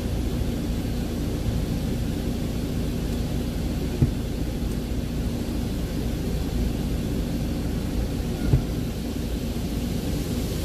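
Freightliner Cascadia's diesel engine idling, heard from inside the cab, under a steady hiss of truck-wash water spraying over the truck. Two short knocks, about 4 and 8.5 seconds in.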